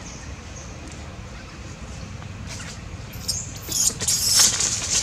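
Newborn long-tailed macaque giving shrill, high-pitched squealing cries while being handled. A few short squeals begin about halfway in, then turn into a louder run of screams near the end.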